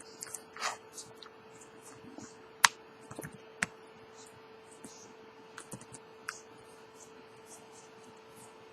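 Plastic back housing of a Huawei Ascend Mate 2 snapping onto the phone as it is pressed around the edges: scattered small clicks, with a sharp click about two and a half seconds in and another a second later, over a faint steady hum.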